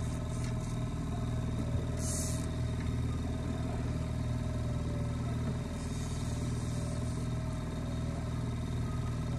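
Mercury outboard motor on the boat's transom running steadily, a low even hum, with a short hiss about two seconds in.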